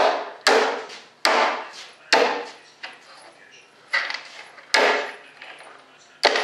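Sharp knocks and cracks, about seven at irregular intervals of roughly a second, each dying away quickly, from hand-tool work prying at the edge of a fiberglass rudder mold to release the part.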